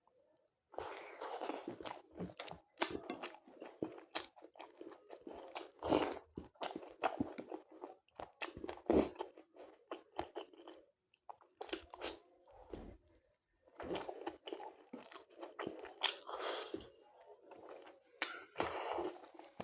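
Close-up mouth sounds of a person chewing and crunching food in irregular bursts, with a short pause about halfway through.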